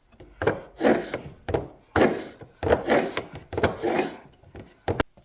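Hand file cutting a flat into a steel rifle barrel clamped in a jig, about seven rasping back-and-forth strokes at roughly one a second, with a short click near the end.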